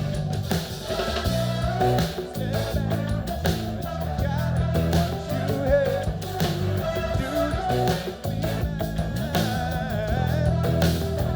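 Live pop band music playing steadily: drum kit and bass guitar over backing tracks, with some singing.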